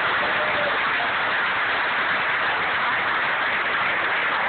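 Loud, steady static hiss, even and unbroken, with no voice or claps above it.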